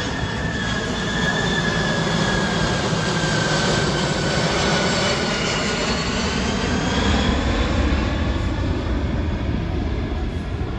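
Turbofan engines of a Lockheed C-5M Super Galaxy running as the transport flies by over the airfield: a steady, loud roar with a high whine that slowly drifts in pitch.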